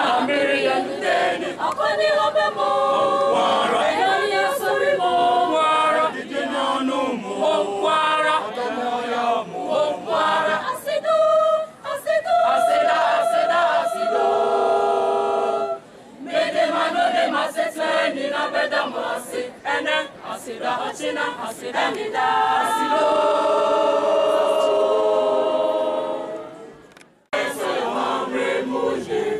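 Mixed choir of boys and girls singing a cappella in harmony, with long held chords in the middle and again near the end. The singing stops briefly a couple of seconds before the end, then starts again.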